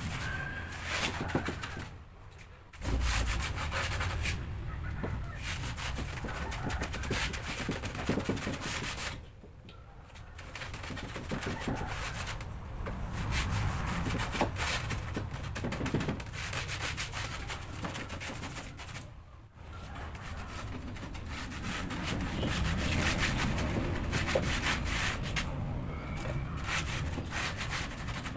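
A hand tool scraping and rubbing along the edges of a wooden rack top, in runs of quick strokes with a few short pauses.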